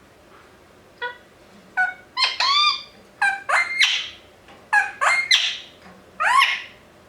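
Indian ringneck parakeet calling: a run of about ten short, loud, shrill calls, several sweeping sharply in pitch, starting about a second in and stopping shortly before the end.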